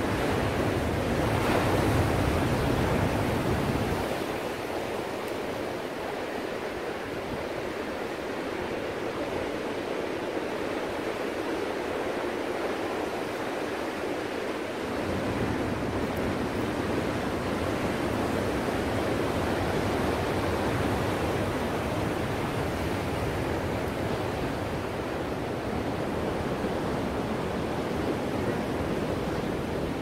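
Ocean surf: a steady rush of waves breaking and washing in, swelling louder in the first few seconds. Its low rumble fades about four seconds in and comes back around fifteen seconds.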